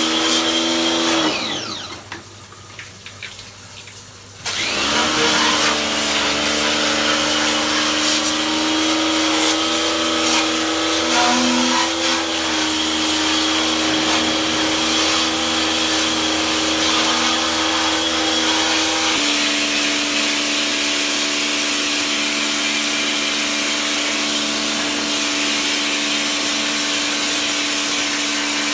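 Electric motor running with a steady hum; it winds down with falling pitch about a second in, then switches back on abruptly a few seconds later and runs steadily, its tone shifting slightly past the middle.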